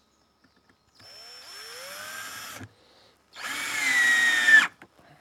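Cordless drill driving a screw into a 2x4 in two runs about a second and a half long, with a short pause between. The second run is louder and its motor pitch drops just before it stops as the screw tightens.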